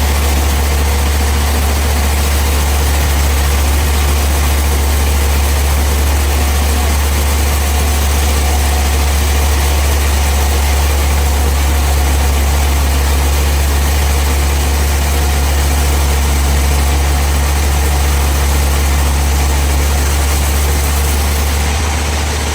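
Sawmill machinery running with a steady, unchanging low drone.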